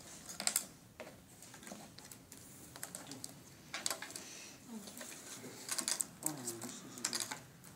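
Dixit cards being dealt onto a tabletop: a scatter of light taps and slaps as the cards are handled and land, in small clusters a second or two apart. Faint low voices murmur in between.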